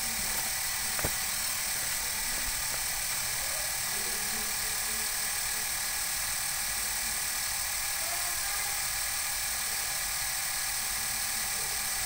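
Small DC motor water pump on a homemade toy fire truck running steadily, drawing water up through a thin tube from a basin; a constant high whine, with a faint click about a second in.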